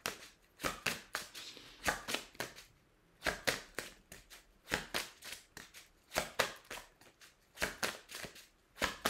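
A deck of oracle cards being shuffled by hand: a string of short, irregular snaps and clicks, about two or three a second, as the cards slap together.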